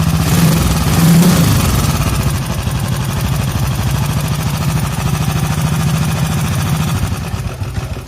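A 1983 Honda CG 125 motorcycle's single-cylinder four-stroke engine idling with a rapid, even beat, revving up a little about a second in. It carries an odd noise from inside the engine, which the owner means to track down by stripping the engine.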